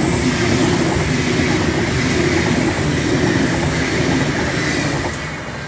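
V/Line VLocity diesel multiple unit passing close by at about 140 km/h: a steady loud rush of wheels on rail and underfloor engines. It eases off near the end as the last carriage goes by.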